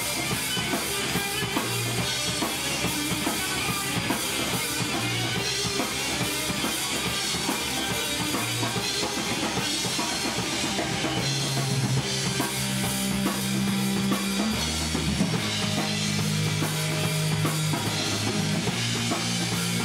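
Live rock band playing an instrumental passage: drum kit with bass drum and cymbals, distorted electric guitars and bass guitar. About halfway through, long held low guitar and bass notes come in and change pitch every second or two.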